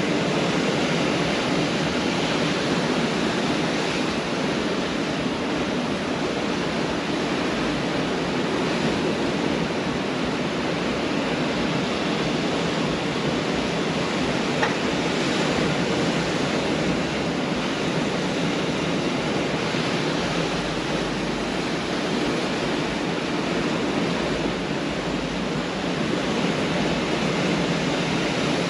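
Pacific Ocean surf on a beach: a steady, unbroken wash of waves with no single crash standing out.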